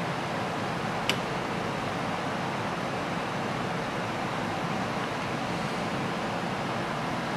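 iPhone loudspeaker, with water in it, playing a low-frequency tone from a tone-generator app; it comes out as a steady, noisy, distorted buzz as the vibration works on the water. A single sharp click about a second in.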